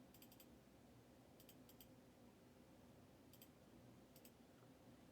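Near silence: room tone with faint clusters of small, sharp clicks about four times.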